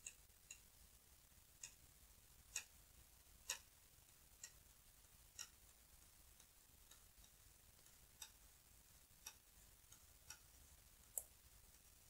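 Metal knitting needles clicking faintly as stitches are knitted, in short irregular ticks about one a second with a pause of a few seconds in the middle.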